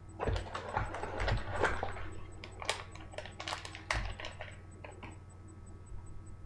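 Packaging being handled and opened by hand: a dense run of small clicks and crinkles, thinning out to a few scattered ticks after about four seconds.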